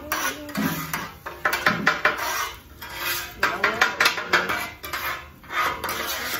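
Metal utensils and cookware clattering and scraping while cooking: a run of irregular sharp clinks in two busy spells.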